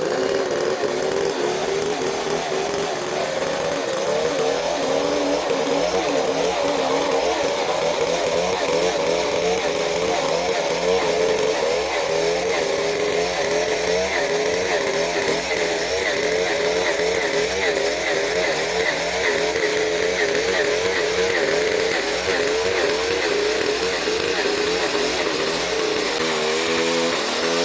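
Chainsaw running under load while milling wood into 4x4 posts. Its steady engine note wavers in pitch as the cut goes on, and shifts and wavers more strongly near the end.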